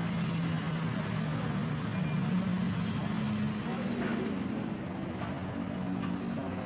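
A steady low mechanical hum over a continuous noisy background, unchanging throughout.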